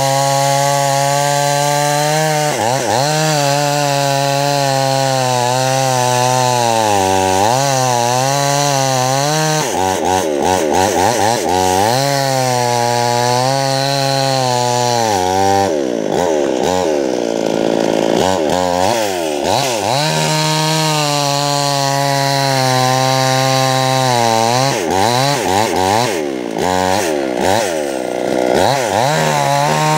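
H&L 5200 mini chainsaw's two-stroke engine running at high revs while cutting logs. Its pitch sags and recovers again and again as the chain bites into the wood and is eased off.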